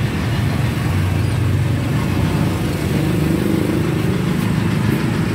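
A motor vehicle's engine running steadily, an even low rumble.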